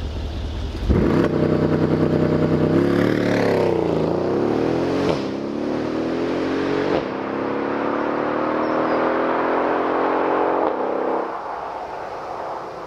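Mercedes CLS63 AMG's 5.5-litre twin-turbo V8 idling, then a launch-control start about a second in. The engine revs hard as the car pulls away, its pitch rising and dropping back at three upshifts. The sound fades as the car goes off into the distance near the end.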